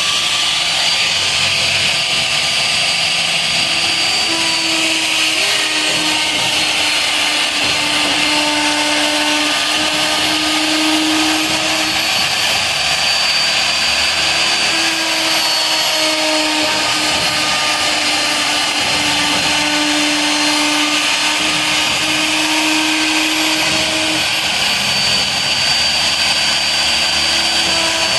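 CNC router spindle running steadily: a high whine over a hiss, with a lower hum that shifts in pitch now and then.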